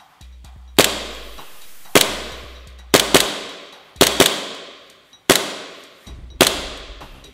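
CO2 airsoft replica of the double-barrelled Arsenal Firearms Dueller Prismatic firing a string of about eight sharp shots, some in quick pairs, each trailing off in an echo, with background music underneath.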